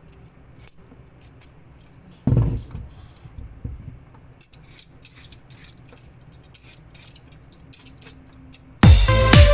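Faint, light clicking and jingling, with one loud thump about two seconds in; near the end, loud electronic dance music starts up.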